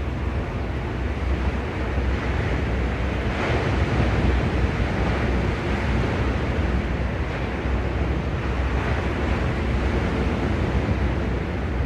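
Sea waves washing onto the shore in a steady wash, with one wave swelling louder about three and a half seconds in. A low rumble of wind on the microphone runs underneath.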